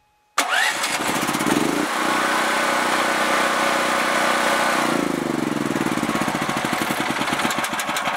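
Small gasoline generator engine with a homemade solenoid automatic choke, electric-started: it catches about half a second in, speeds up, and runs steadily. About five seconds in its tone shifts and the firing turns into a more distinct chugging beat.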